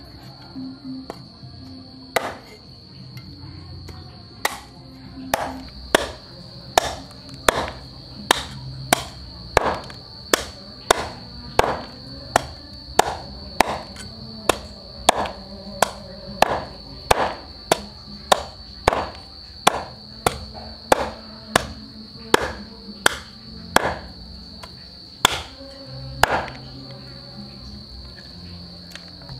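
Heavy cleaver chopping through crocodile meat and bone on a wooden chopping block. A few scattered blows come first, then a steady run of about one and a half strikes a second that stops shortly before the end. Throughout there is a constant high cricket trill and faint background music.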